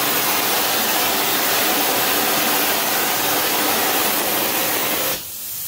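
Gas-fed powder flame-spray gun running with a steady, loud rushing hiss as it sprays zirconia ceramic thermal-barrier coating onto an exhaust manifold. It shuts off abruptly about five seconds in.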